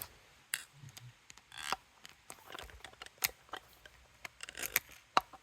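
Irregular light clicks and taps of small tools and carburetor parts being handled on a workbench, with a couple of brief scrapes.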